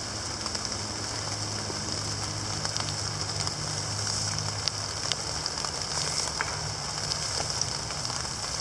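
Steady rain falling on wet leaf litter: an even hiss with scattered ticks of single drops.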